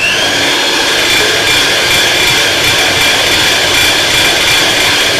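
Electric hand mixer running steadily, its beaters creaming margarine and caster sugar in a glass bowl, with a steady high whine.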